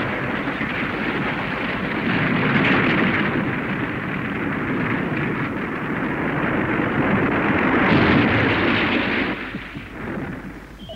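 A long rumbling crash, like an explosion or a collapse, running for about ten seconds and dying away near the end.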